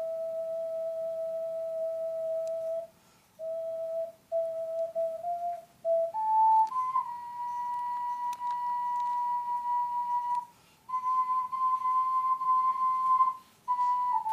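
Ocarina playing a slow melody of pure, flute-like held notes. A long low note opens it, then come shorter notes with brief breaks, and about six seconds in the tune moves up to higher, longer held notes.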